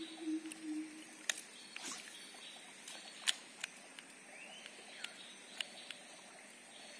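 Tropical forest river ambience: a steady high insect whine, birds calling with short sliding notes, and several sharp clicks, the loudest about three seconds in.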